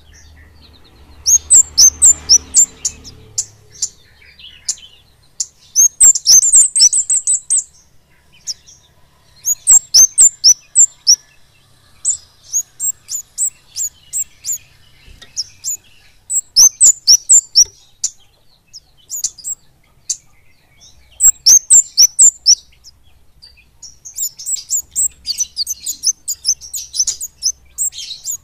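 Orange-bellied flowerpecker (kemade) singing: bursts of rapid, very high-pitched chirping notes, each phrase lasting one to three seconds and repeated every few seconds with short pauses between.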